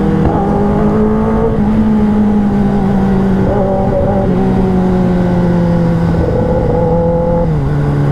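Kawasaki ZX-10R's inline-four engine heard from the saddle, running at steady part-throttle revs. Its pitch sinks slowly as the bike slows and drops quickly near the end, over a low rush of wind.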